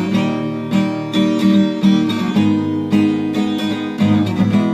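Acoustic guitar strummed in chords, a steady rhythmic strumming pattern between sung verses.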